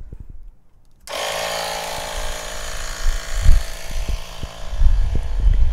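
A small portable electric air pump switches on about a second in and runs with a steady buzzing whine, serving as loud background noise. Low thumps join from about three seconds in.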